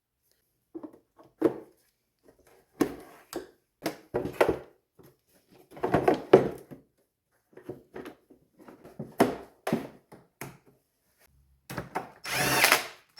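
A handheld power tool run in a string of short, irregular bursts, with one longer run of about a second near the end, while engine-bay parts are being refitted.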